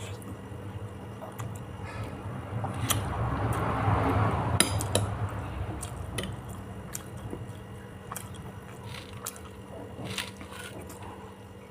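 Close-miked eating: wet chewing of tempeh and tofu with coconut-milk fish broth, with a louder stretch of chewing and slurping a few seconds in. Sharp clicks of a spoon against the plate come now and then.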